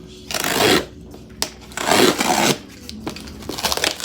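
Packaging being handled and opened: two loud rustling rips, the first just after the start and the second about two seconds in, then quick light crinkling and clicks near the end.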